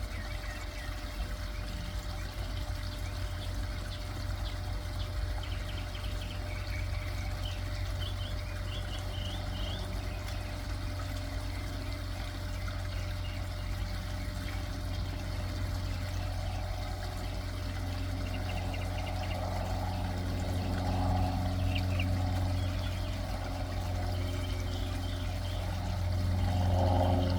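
Small garden-pond waterfall trickling and splashing steadily, with songbirds chirping now and then. From about two-thirds through, the engine drone of a small propeller plane grows louder toward the end.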